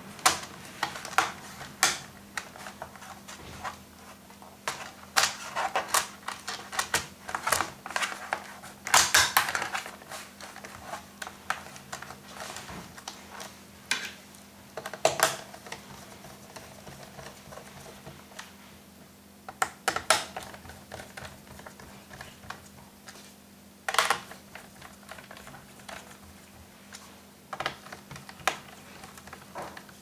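Irregular small clicks and taps, some in quick clusters, of hands refitting a laptop's plastic bottom cover and handling its small screws.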